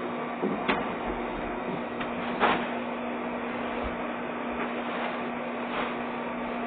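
Vacuum cleaner running steadily with an even motor hum, with a few light knocks, the loudest about two and a half seconds in.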